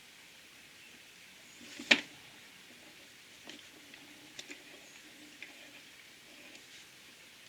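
One sharp click about two seconds in, then a few lighter clicks and taps: small parts of an opened-up jigsaw being handled as its brushes and brush springs are examined.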